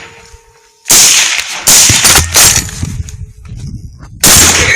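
Rifle shots at hogs: four in quick succession starting about a second in, then one more shot near the end, each sharp crack followed by a short rolling echo.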